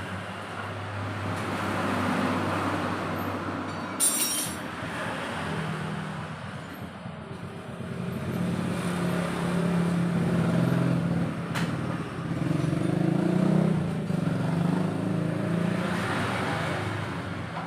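A motorcycle engine running, its hum shifting in pitch, with a sharp metallic click about four seconds in.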